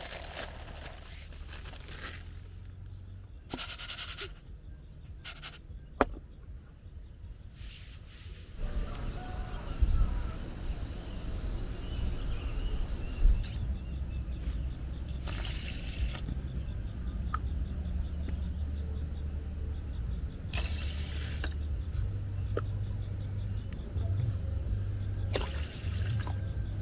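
Rain falling with water dripping and trickling. It swells into short louder hisses several times, and a steady low rumble sets in about nine seconds in.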